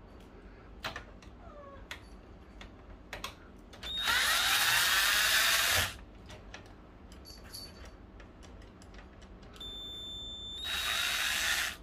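Electric screwdriver backing out the screws that hold the fuser unit in a Brother HL-2270DW laser printer: a run of about two seconds, then near the end a slower start that speeds up into a second, shorter run. A few light clicks of the bit on the screws come between.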